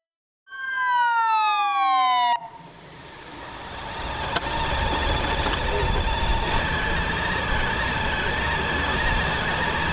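An emergency vehicle siren sliding down in pitch for about two seconds, cut off abruptly, followed by a steady noisy rumble with faint steady tones that builds up and holds.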